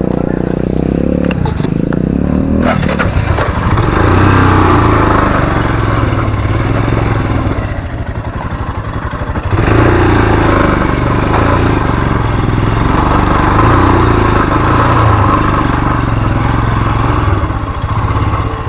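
Royal Enfield Himalayan's single-cylinder engine running under load on rough off-road ground, with the throttle opening and easing. It drops off for a moment about eight seconds in, then pulls up again. A few sharp knocks come about three seconds in.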